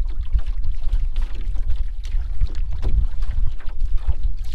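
Wind buffeting the microphone with a steady low rumble, over small waves lapping and splashing against a light canoe's hull on a choppy lake.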